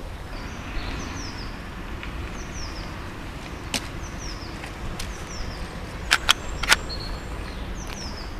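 Outdoor woodland sound: birds chirping in short falling calls every second or so over a steady low rumble of wind. A few sharp clicks come as a handgun is handled, the loudest three close together about six seconds in.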